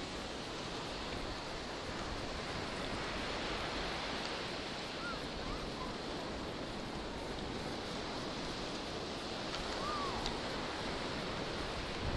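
Steady wash of breaking surf mixed with wind rushing over the microphone. Two faint short squeaks are heard about five and ten seconds in.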